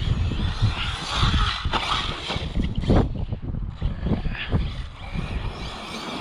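Arrma brushless electric RC truck driving over a dirt track, its motor and tyres on loose dirt, with a few sharp knocks. Wind buffets the microphone throughout.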